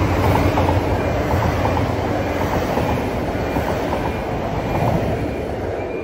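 Passenger train passing over a level crossing, a steady rumble with a quick run of wheel clicks over the rail joints, easing off near the end as it moves away.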